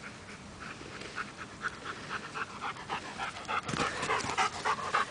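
A dog panting rapidly, about four to five breaths a second, faint at first and louder and closer from nearly four seconds in.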